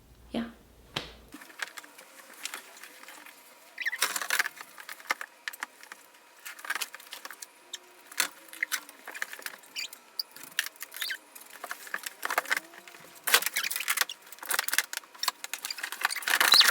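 Small hard objects clinking and rattling as they are handled, in irregular bursts, busiest about four seconds in and again near the end.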